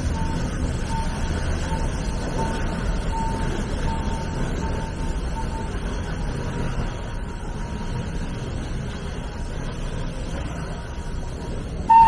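Steady low rumble, with a faint beep repeating about twice a second through the first half. A loud steam whistle blast starts right at the very end.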